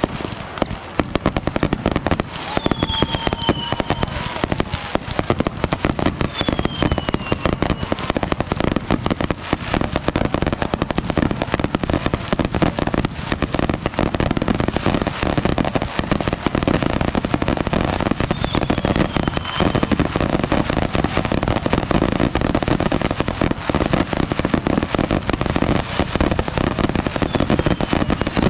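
Fireworks going off nonstop in a dense run of crackling and popping. A few short falling whistles sound through it, about four times.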